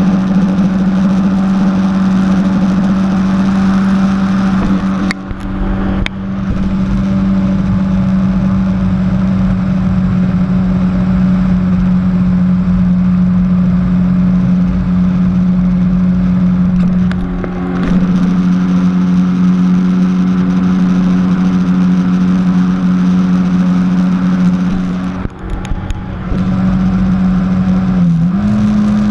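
Jet ski engine running steadily at speed, a loud continuous drone with a strong low hum. It drops off briefly three times, and its pitch sags for a moment near the end.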